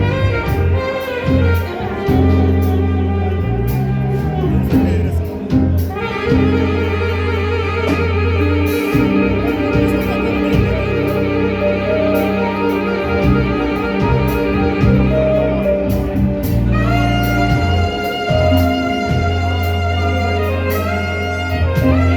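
Live band playing jazz at a sound check, with a saxophone carrying a long wavering melody over a low bass line.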